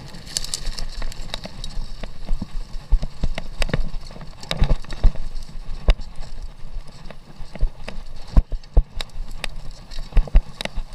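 Commencal mountain bike rattling over a bumpy dirt singletrack: irregular knocks and clatter from the frame and parts as the tyres hit ruts, over a steady low rumble of riding.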